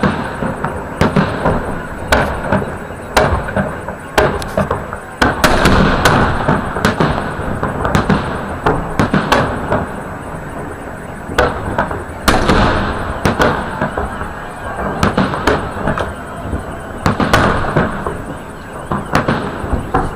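Salute fireworks shells fired from salvo launchers bursting overhead: a long run of loud bangs, irregular but roughly one a second and sometimes two close together, with a continuous noisy din between them.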